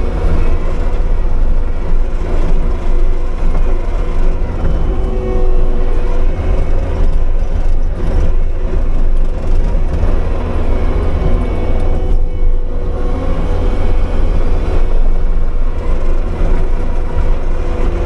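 Kubota SVL75-2 compact track loader's diesel engine running hard under load, driving a hydraulic Bobcat Brush Cat rotary cutter through dry grass, heard from inside the cab. A loud, steady drone with a constant hum.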